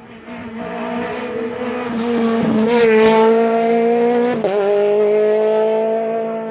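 Rally car engine at high revs as the car approaches and passes on a rally stage, loudest about three seconds in. The engine pitch drops sharply twice, near the middle and a second and a half later, as gears change, then holds high as the car pulls away.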